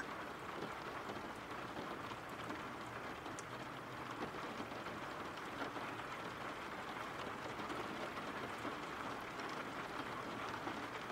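Steady rain falling, an even hiss of rainfall.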